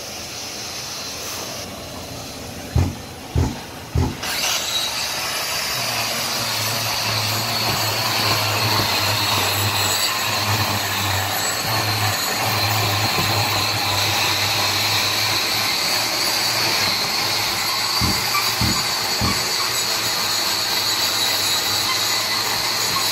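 Hand-held angle grinder with a cup wheel in a vacuum shroud, grinding cured crack filler flush with a concrete floor, with the HEPA dust extractor running on the same hose. A steady grinding noise throughout, with a few short knocks in the first seconds and again near the end.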